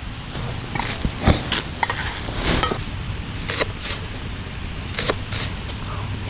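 Camp cookware and utensils clinking and scraping in irregular strokes during vegetable preparation.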